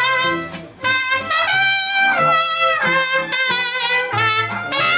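A mariachi-style serenade band playing a tune: a trumpet carries the melody over violin and strummed guitars with bass notes underneath. There is a brief break in the playing about a second in.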